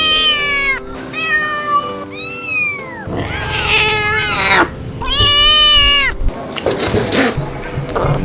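Kittens meowing loudly: about five long, high-pitched cries in quick succession, two of them overlapping near the middle, over soft background music.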